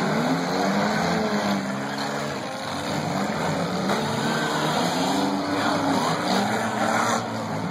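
Several demolition derby cars' engines revving up and down over one another, their pitch rising and falling.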